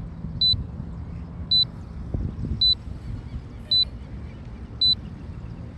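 Drone remote controller sounding a short high warning beep about once a second, five times, while the drone is on automatic return-to-home. Low wind rumble on the microphone underneath.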